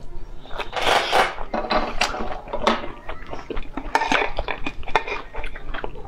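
Oyster shells clinking and scraping against a ceramic plate as they are picked up and handled, mixed with wet slurping of oyster meat: a run of short, sharp clicks and brief noisy strokes.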